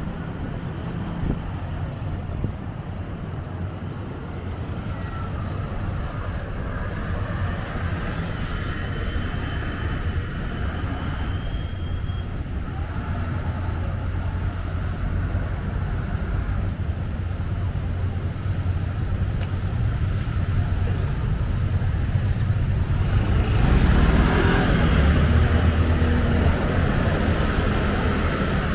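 Road traffic: a steady rumble of passing cars, slowly growing louder. A heavy vehicle's engine passes close about three-quarters of the way through.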